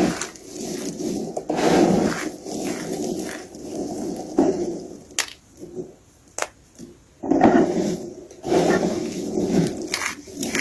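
Soap being crushed, crunching and crumbling in irregular bursts, with a quieter pause of a couple of seconds in the middle broken by two sharp clicks.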